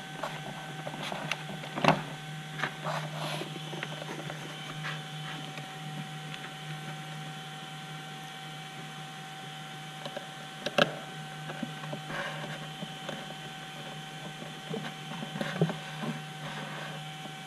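Light clicks and knocks of a carbon-fibre motor mount and brushless motor being handled and fitted onto a foam flying wing, with a few sharper clicks scattered through, over a steady electrical hum.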